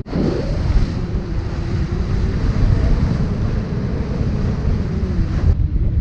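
Heavy wind buffeting the microphone while riding a Honda Super Cub, with the motorcycle's small single-cylinder engine running faintly beneath, its pitch wavering. The sound changes abruptly about five and a half seconds in.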